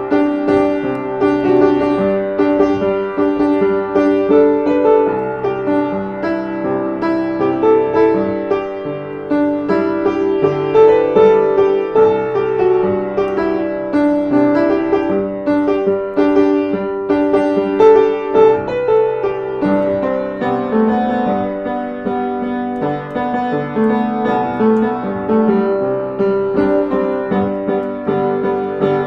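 Background music: piano playing a steady flowing melody with many quick notes.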